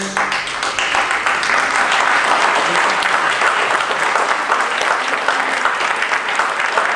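Audience applause: many people clapping at once, dense and steady.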